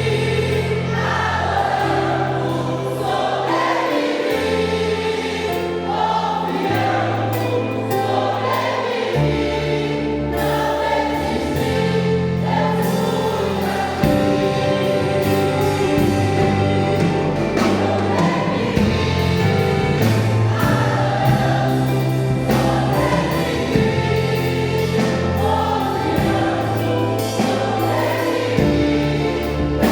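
Choir singing a gospel song over instrumental accompaniment, with a bass line that moves every second or two and a beat joining about ten seconds in.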